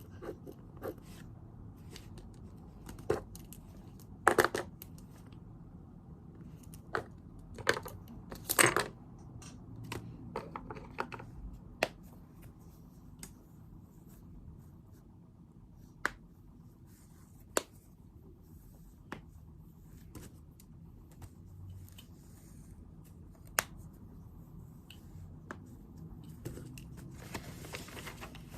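Sounds of studying at a desk: scattered small clicks and taps of pens and stationery with paper rustling, a couple of louder clatters about 4 and 9 seconds in, and a short rustle near the end, over a steady low room hum.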